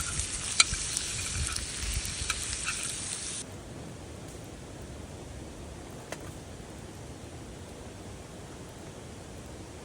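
Meat sizzling and spattering on an iron frying pan, with sharp pops, cutting off abruptly after about three and a half seconds. A faint steady hiss with a single tick follows.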